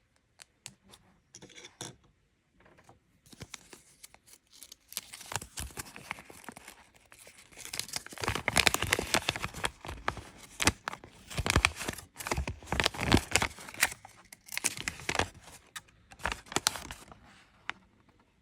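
LEGO minifigure mystery pack being handled, torn open and crinkled, with a few short clicks at first, then a long stretch of dense crinkling and rustling that is loudest in the middle.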